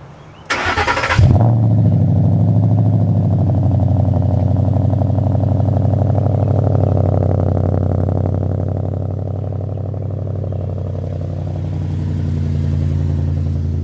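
2013 Ford Mustang 5.0 V8 firing up with a brief loud burst about half a second in, then running steadily with a deep, even rumble that swells a little in the middle and again near the end.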